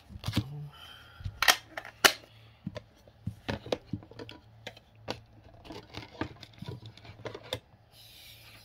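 Handling noise close to a phone's microphone: irregular sharp clicks and taps, two louder ones about a second and a half and two seconds in, over a faint steady low hum.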